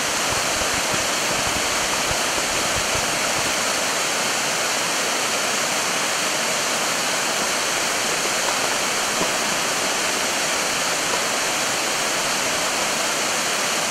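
Waterfall water pouring and splashing close by: a steady, even rush of falling water, with a few low thuds in the first three seconds.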